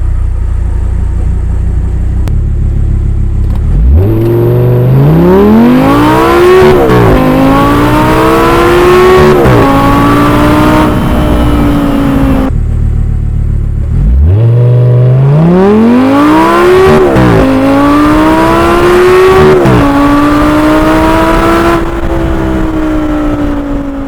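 2011 Audi R8 V10 5.2 FSI's naturally aspirated V10 idling, then accelerating hard at full throttle, its pitch climbing and dropping sharply at each of two upshifts by the R-Tronic gearbox before it levels off. The engine falls back to idle about twelve seconds in, then a second identical run follows with two more upshifts.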